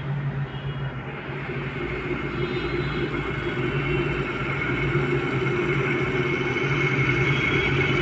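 Bajaj electric kettle heating water, its element working again: a steady rushing rumble with a low hum, growing gradually louder as the water nears the boil and small bubbles form on the bottom.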